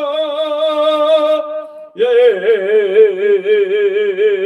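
A man singing long held notes in a classical, operatic style, with a wide vibrato, into a handheld microphone. The first note breaks off about a second and a half in, and a second note starts about two seconds in.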